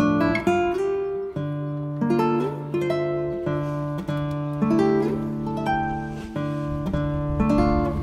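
Instrumental background music led by an acoustic guitar, with plucked notes and chords changing every second or so.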